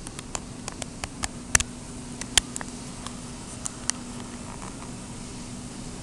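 Irregular sharp clicks and taps, about a dozen in the first few seconds with two louder ones near the middle, over a steady low hum.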